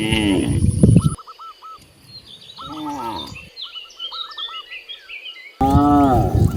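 Cows mooing: a loud moo ends about a second in, a quieter one follows around three seconds, and another loud moo starts near the end. Small birds chirp repeatedly in the background.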